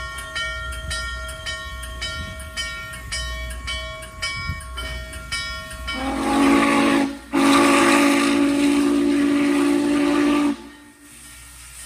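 Steam locomotive bell ringing steadily, about two and a half strikes a second. About six seconds in, the steam whistle blows a short blast and then a long one, loud and low-pitched, with a rush of steam.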